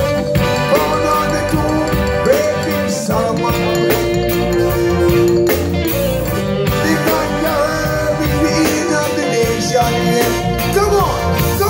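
Live roots reggae band playing, with guitar, drums and bass under vocalists singing held, gliding notes, heard through a phone's microphone in the crowd.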